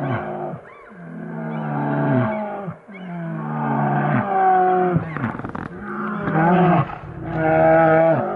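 Two brown bears roaring and growling at each other as they square off to fight for dominance: a run of long drawn-out calls, each falling in pitch at its end. There is a short crackling, scuffling noise about five seconds in.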